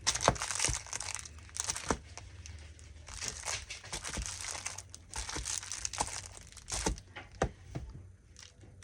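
Paper and packaging crinkling and rustling as planner papers are unpacked and handled, in irregular bursts with a few sharp clicks.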